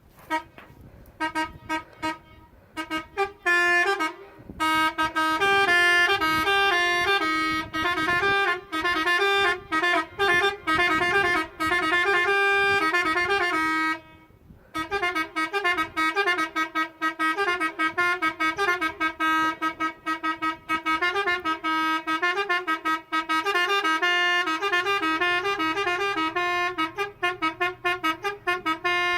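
Musical car horn playing a tune: short separate notes at first, then a continuous run of changing notes, broken by a short pause a little under halfway through.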